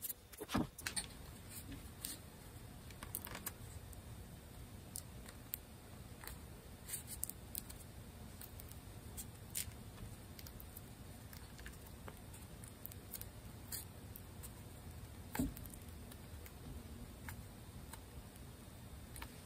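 Faint scattered clicks and light taps of hands working a glued fingerboard extension back onto a guitar neck, pressing it down to close the joint. There is a louder knock about half a second in and another about fifteen seconds in.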